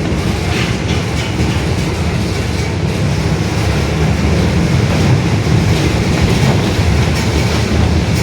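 Mercedes-Benz OF-1721 city bus running on the road with a steady, loud rumble, its rear differential droning very loudly.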